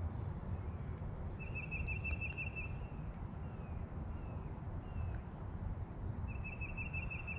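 Riverbank outdoor ambience: a steady low rumble with two short, high-pitched trills of rapid ticks from wildlife, one about a second and a half in and another near the end.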